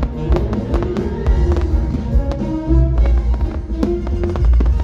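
Music with a heavy bass played over loudspeakers for a fireworks display, with many short, sharp bangs of firework shells bursting over it.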